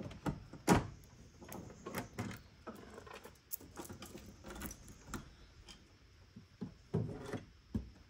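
Irregular knocks, clunks and rattles of objects being moved about and handled, from fetching a spare chainsaw bar; the loudest knocks come just under a second in and at about seven seconds.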